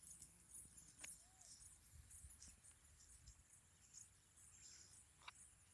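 Near silence: faint outdoor ambience with faint high-pitched insect chirping and two soft clicks, one about a second in and one near the end.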